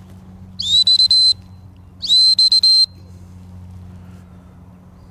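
Retriever training whistle blown in two short, shrill blasts about a second apart, each a high steady tone with a quick upward slide at its start.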